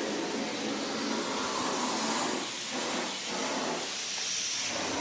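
Floor-refinishing machinery running with a steady hiss during wet polishing of travertine tile.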